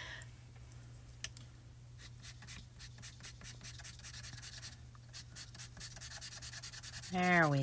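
Pencil scratching quick short strokes on textured pastel paper, drawing in grass, at about four strokes a second from about two seconds in. A short vocal sound from the person drawing comes near the end, over a steady low hum.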